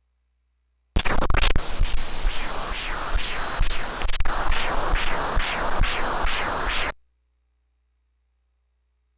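Pulsed-wave Doppler ultrasound audio of fetal blood flow: a whooshing pulse with each heartbeat, about two beats a second. It starts about a second in and cuts off sharply about six seconds later.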